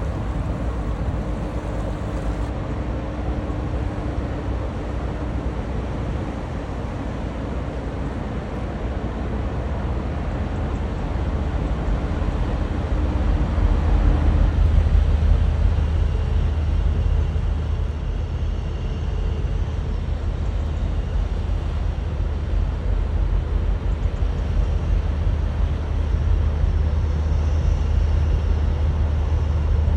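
Deep, steady engine rumble of a cargo ship under way, with a faint hum above it. About halfway through the hum drops out and the rumble grows louder.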